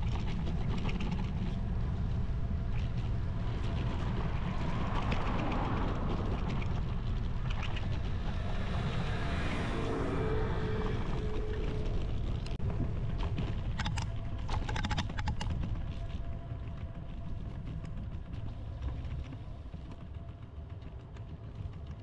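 Wind rumbling on the microphone and road noise while riding a bicycle. A vehicle swells past about halfway through, and a few sharp clicks follow.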